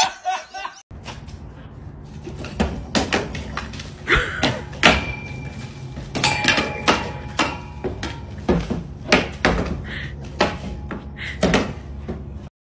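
Metal wire frame knocking and clattering against the ground and fence as a dog drags it about, a string of irregular knocks, some with a brief metallic ring, over a steady low rumble.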